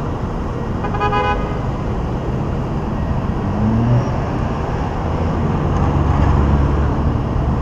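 Busy city street traffic: cars driving past, with a short horn toot about a second in. A deeper engine sound grows louder near the end.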